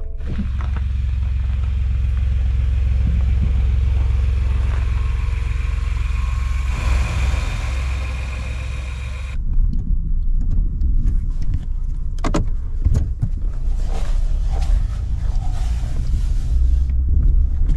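Ford pickup truck running, heard from inside the cab as a steady low hum under a steady hiss. About nine seconds in this changes to the truck moving off through deep snow: low rumbling with scattered knocks and crunches.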